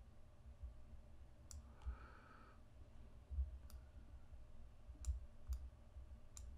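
Computer mouse clicking: about five sharp single clicks spaced a second or more apart, over a quiet room hum.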